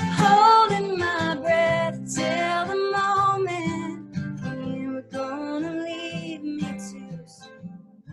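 A woman singing while strumming an acoustic guitar, with the playing and singing growing softer near the end.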